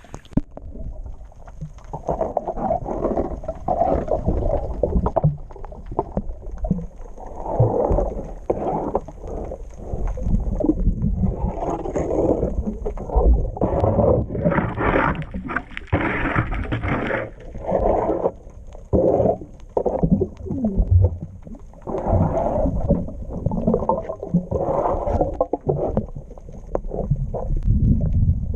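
Irregular scraping and scrubbing strokes on a boat hull as small barnacles and grime are cleaned off, over a low rumble.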